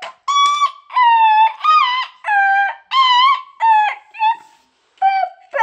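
A young child singing in a very high voice: a string of about ten drawn-out, sliding syllables, with a short break about four and a half seconds in.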